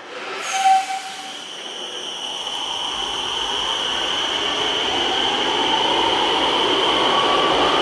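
RET metro train pulling out of an underground station. A short beep sounds about half a second in, then the whine of the electric traction motors and the wheel and rail noise grow steadily louder as the train picks up speed.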